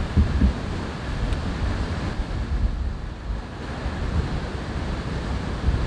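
Wind buffeting the microphone in gusts: an uneven low rumble with a thin hiss over it, strongest in a couple of gusts at the start.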